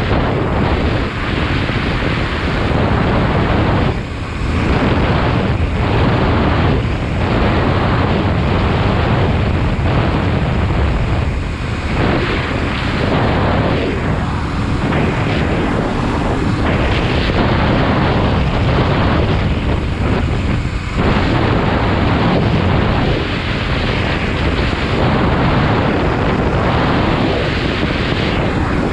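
Loud wind rush buffeting the microphone of a motorcycle riding at about 45 mph, with the bike's engine and tyre noise mixed in underneath, easing briefly a few times.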